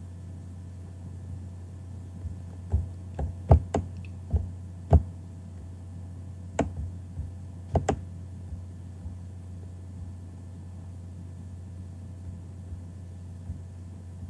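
Scattered clicks and taps of a computer mouse and keyboard, a dozen or so between about two and eight seconds in, then a few faint ones, over a steady low hum.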